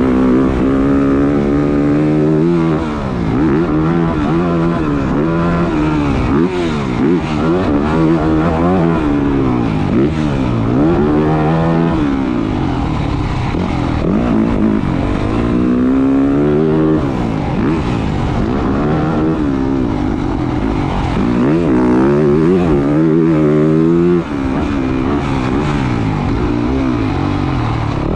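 2023 Yamaha YZ450F's four-stroke single-cylinder engine revving hard as it is ridden around a motocross track, its pitch climbing and falling over and over as the throttle opens and closes, with the throttle briefly shut twice.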